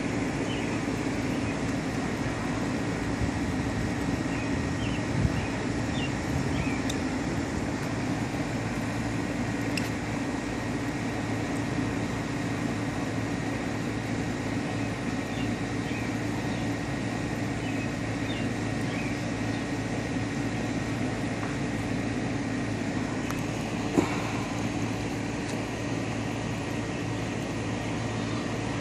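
Steady mechanical hum with a thin high whine, unchanging throughout, and a single sharp click about 24 seconds in.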